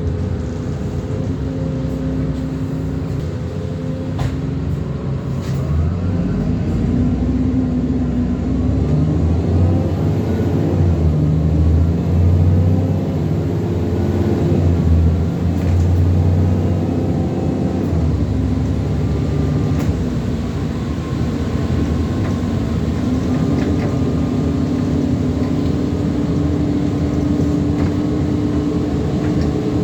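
ADL Enviro400 Trident double-decker bus's diesel engine and driveline running on the move. It pulls harder with a louder low rumble from about six seconds in to about seventeen, then settles, with a steady hum held through the last several seconds.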